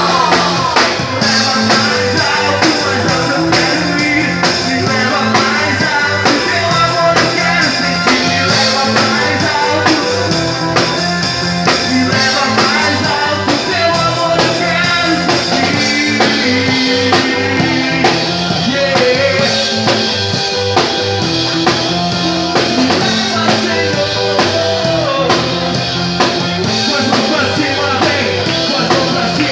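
A band playing a rock song with drum kit and guitar, loud and continuous.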